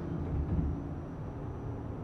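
Low, steady rumble of an R46 subway car, heard from inside the car.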